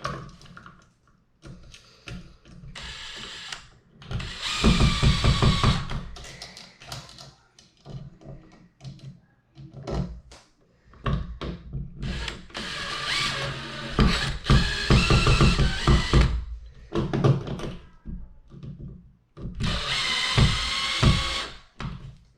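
Power drill-driver running in about five short spurts, a second or two each, driving in the screws that fasten a newly wired electrical outlet into its wall box, with clicks and knocks of handling in between.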